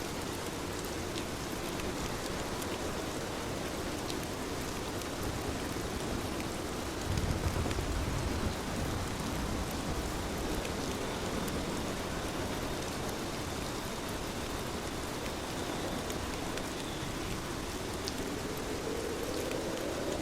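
Steady rain falling, with scattered drop ticks through it and a short low rumble about seven seconds in.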